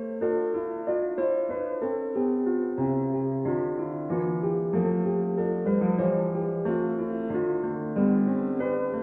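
Background piano music: a slow melody of sustained notes, with a lower bass line entering about three seconds in.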